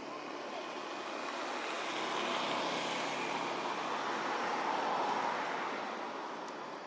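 A passing vehicle: a rushing noise that swells to a peak a few seconds in and then fades away.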